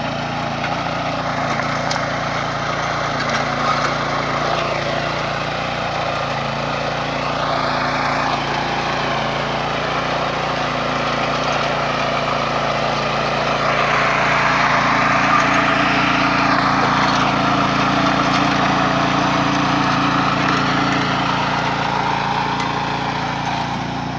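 Walk-behind petrol mini tiller running steadily while its rotating tines churn grassy soil. The engine note rises and falls slightly as it works, and it is a little louder about two-thirds of the way through.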